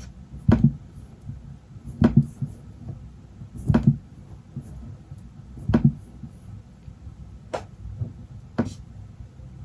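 Six irregular tapping clicks on an iPad Pro and its Magic Keyboard, each a short click with a soft low thud, one every second or two, as images are tapped and scrolled through.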